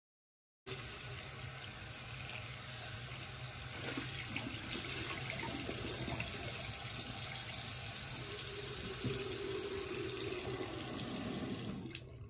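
Water running from a sink tap with a few scattered splashes while a face is rinsed. It starts suddenly about a second in and stops shortly before the end.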